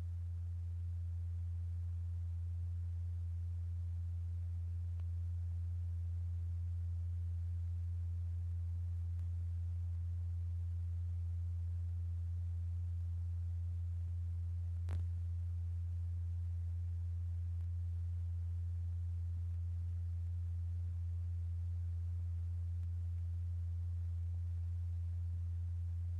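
A single low, steady sine tone, the audio frequency that vibrates a heated blob of liquid kaolin into rippling wave patterns. A brief click sounds once about halfway through.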